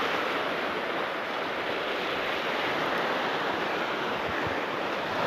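Ocean surf breaking and washing over shoreline rocks: a steady rush of white water.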